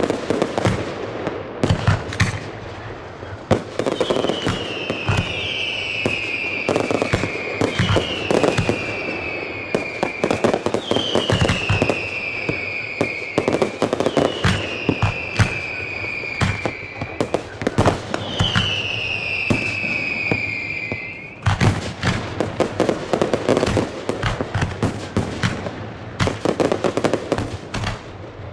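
Fireworks finale heard close to the launch site: a constant run of sharp bangs and crackles. From about four seconds in, a string of high whistles, each falling in pitch and lasting about two seconds, comes one after another until about twenty-one seconds in, when the bangs grow thicker.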